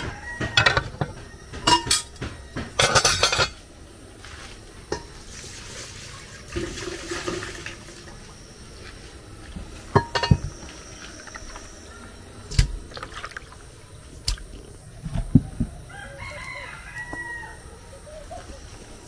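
Chickens clucking and a rooster crowing, with scattered sharp knocks.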